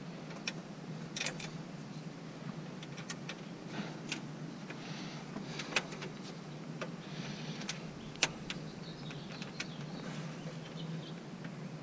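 Small metal parts handled by nitrile-gloved hands as a bolt and washer are threaded in by hand: scattered light clicks and glove rustling, the sharpest click about eight seconds in, over a steady low hum.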